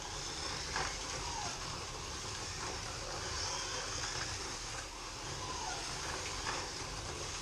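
Scalextric slot cars running laps on a plastic track: a steady mix of small electric motors whining and the cars rattling along the track slots, with a few brief clicks.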